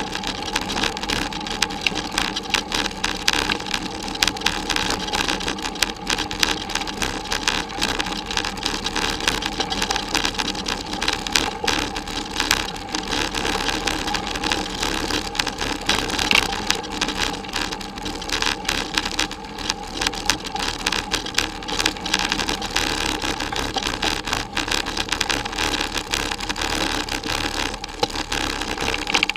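Bicycle riding over a bumpy forest dirt track, heard through a bike-mounted camera: a continuous dense rattling clatter with tyre rumble as the bike and camera shake over the ground.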